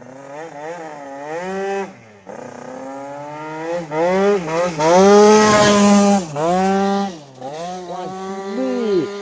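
MBK Booster scooter's 100 cc two-stroke kit engine (Fast cylinder) revving hard on acceleration, its pitch climbing and falling back several times as the rider works the throttle. It is loudest about five to six seconds in.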